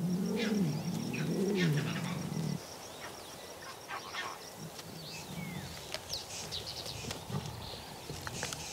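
A low animal call that rises and falls twice over the first two and a half seconds, followed by birds chirping, with a steady fast high ticking through the first half.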